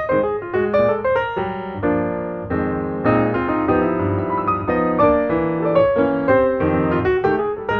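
Background piano music: a quick melody of single notes over chords, with no break.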